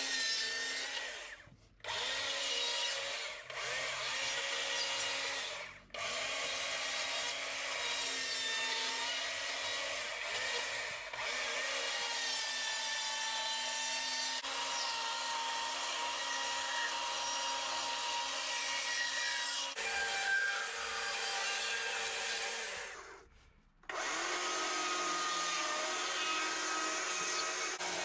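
Stihl chainsaw running at high revs while cutting into a wooden block, its pitch shifting a little as it works through the cuts. The sound breaks off briefly three times.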